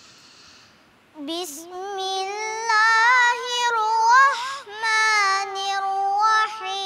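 A seven-year-old boy chanting Quranic recitation in Arabic: a breath at the start, then from about a second in, one high child's voice in long melodic phrases, holding notes and gliding in pitch.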